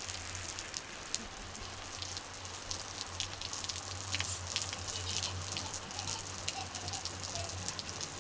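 Hose spray falling like heavy rain on a rabbit-fur felt hat, a coat and wooden decking: a steady hiss of water with many sharp, separate drop ticks, over a low steady hum.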